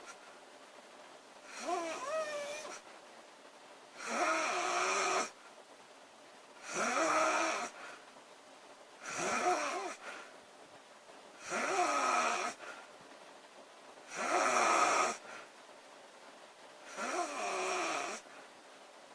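A woman snoring: seven snores at an even pace, one every two and a half seconds or so. Each snore lasts about a second and has a wavering pitch.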